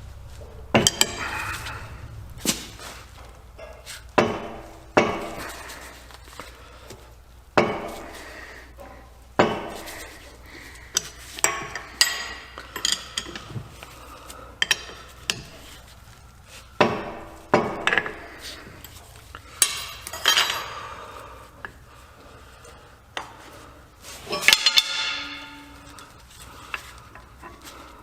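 Irregular metallic clanks and clinks, each with a short ring, every second or two: steel tools and parts of a Ford 9.75-inch limited-slip differential being handled as its clutch packs are taken out.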